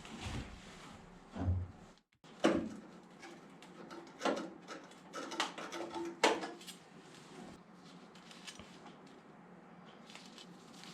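Scattered light clinks and knocks of sheet metal and tools being handled, with a sharper knock about six seconds in.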